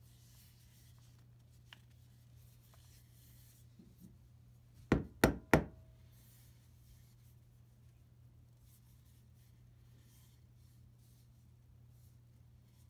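Wooden mallet knocked against a wooden workbench three times in quick succession, about five seconds in. Around it there are only a few light handling clicks over a faint steady hum.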